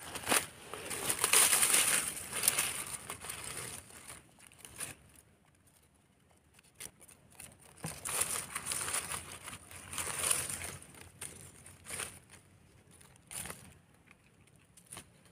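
Dry fallen leaves crackling and rustling as hands dig mushrooms out of the leaf litter. There are two longer bouts of a few seconds each, then a few short crinkles, with quieter gaps between them.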